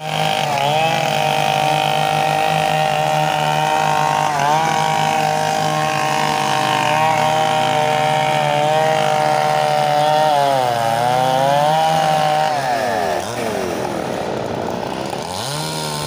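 Chainsaw running at high revs while cutting up a fallen tree. Its pitch dips briefly about four seconds in and again around eleven seconds, then falls off and wavers before revving back up near the end.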